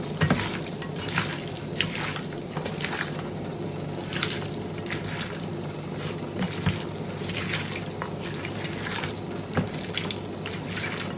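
A hand squeezing and mixing raw chicken pieces with sliced onion, tomato and sweet pepper in a bowl, working the seasoning in: irregular wet squelches and squishes. A steady low hum runs underneath.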